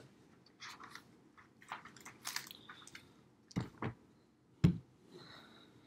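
Faint small clicks and soft rustling noises close to the microphone, with two short sharper knocks about three and a half and four and a half seconds in.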